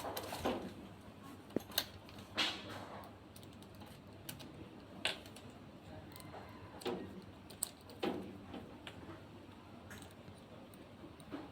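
Irregular light clicks and knocks, a few seconds apart, from hard parts being handled while a washing machine's hoses are fitted.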